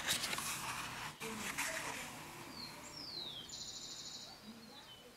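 Faint paper rustle of book pages being handled and turned, starting with a sharp click. About halfway through, a bird chirps in the background: a short falling whistle, then a brief buzzy trill.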